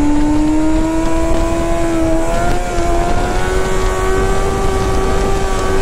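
Honda CBR600F4i inline-four sport-bike engine pulling under steady throttle, its pitch climbing slowly and evenly.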